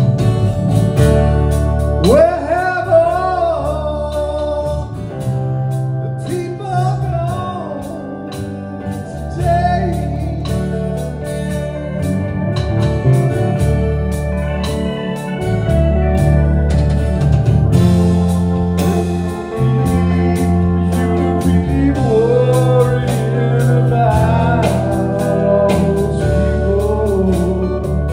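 Rock band playing a slow jam: a voice sings drawn-out, sliding phrases over organ, bass and drums.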